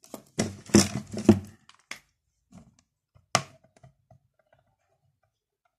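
A pen being handled over paper on a clipboard: a quick run of sharp clicks and knocks in the first second and a half, another sharp click a couple of seconds later, then a few faint taps.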